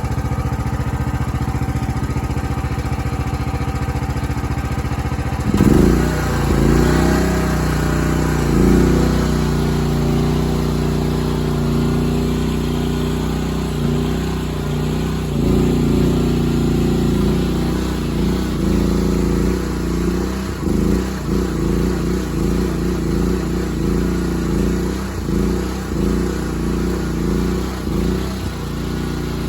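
Briggs & Stratton petrol engine of an STR 320 mini skid steer running steadily, then about five and a half seconds in it speeds up and its note keeps rising and falling.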